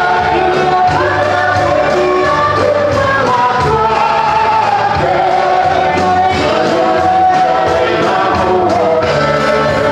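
A large congregation singing a gospel hymn together, with instrumental accompaniment.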